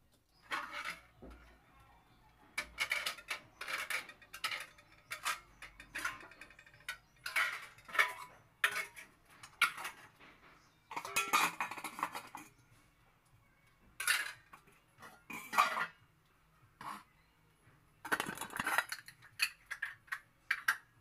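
Pots, dishes and utensils clattering and clinking as they are handled and set down, in irregular knocks and scrapes.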